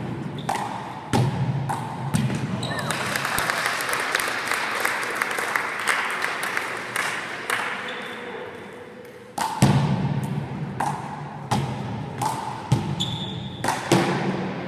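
One-wall handball rally: sharp slaps of the ball off hands and the wall, some in quick runs, with rubber-soled shoes squeaking briefly on the gym floor. A few seconds of rushing noise fill the middle.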